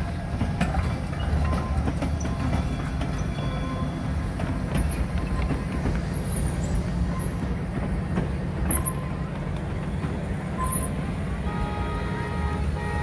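Carillon Park's 3-foot-gauge 4-4-0 'American' type steam train rolling past close by, locomotive and then open passenger cars: a steady low rumble of wheels on rail with scattered clicks over the rail joints.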